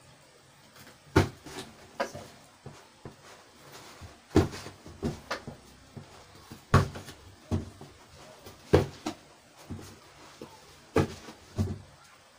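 Irregular sharp knocks and clicks, about a dozen spread unevenly, from plastic tubs and cardboard being handled and knocked on a table.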